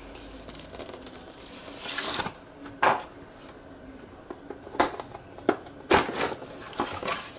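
Cardboard packaging handled during unboxing: a rubbing, sliding rustle as the white inner box comes out of its printed outer sleeve, then several sharp knocks and taps of cardboard as the box and its flaps are handled.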